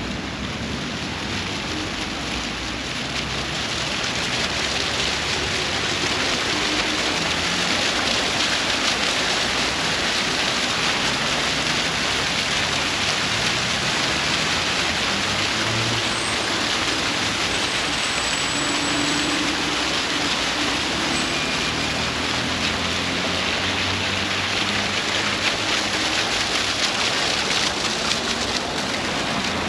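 A row of fountain jets splashing steadily into their basin, a continuous watery hiss that grows louder about four seconds in and stays up until near the end. Road traffic rumbles underneath.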